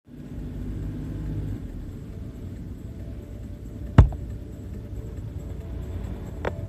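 Road noise inside a moving car's cabin: a steady low rumble of engine and tyres in slow traffic. A sharp knock about four seconds in is the loudest sound, and a smaller click comes near the end.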